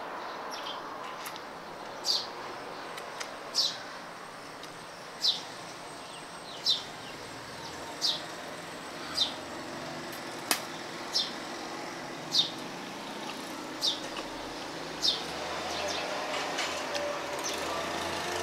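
A bird chirping over and over, one short falling chirp about every second or so, over a steady background hum. One sharp click sounds about ten seconds in.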